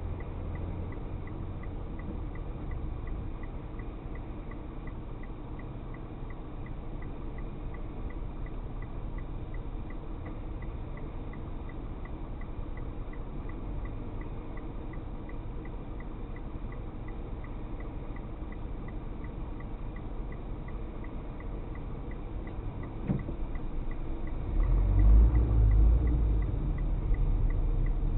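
Car driving, recorded by an in-car camera: a steady low engine and road rumble with a faint regular ticking. There is a single knock, and just after it the rumble grows louder near the end.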